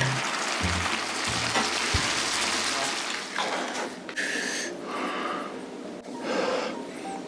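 Webfoot octopus and beef brisket stir-fry sizzling in a pan over a portable gas burner, under background music that stops about two seconds in. Then, quieter, short rustles as a packet is opened.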